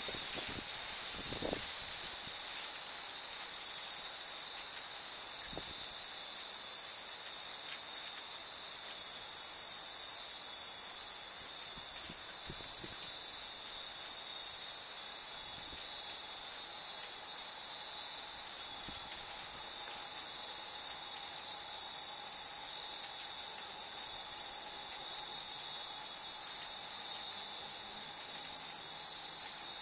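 Steady, unbroken high-pitched chorus of insects singing in the trees.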